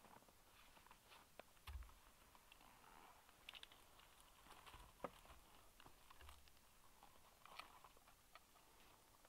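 Faint handling noise: scattered rustles and light clicks as a cloth tote bag and the nest's sticks are handled, with a sharper click about five seconds in and two dull low thumps, near two seconds and near six seconds.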